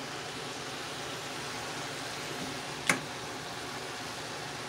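Steady hiss of chopped vegetables cooking in a stainless steel pot as they are stirred, with one sharp knock about three seconds in from the utensil striking the pot.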